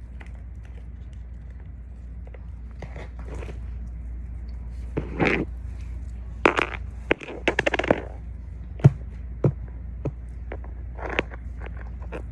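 Toys handled close to the microphone: bursts of crinkling and crackling, loudest in the middle, then a few sharp clicks and taps over a steady low hum.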